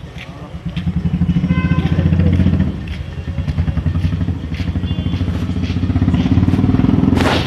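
An engine running with a fast, even pulsing, getting louder about a second in and staying loud, with a short hissing burst near the end.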